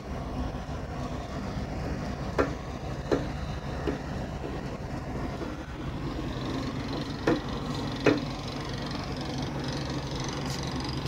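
Steady low machine hum, broken by a few sharp clicks: three close together a couple of seconds in and two more later.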